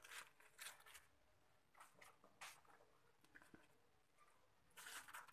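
Near silence, with a few faint, short, soft pops and rustles from a pan of simmering curry gravy being worked by hand; a small cluster of them comes near the end.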